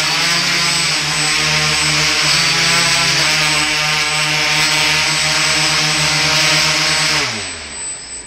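Quadcopter's four brushless motors and propellers whirring together, their pitch wavering slightly as the flight controller balances the craft, with a steady high whine over them. About seven seconds in, all the motors wind down together and the sound falls away.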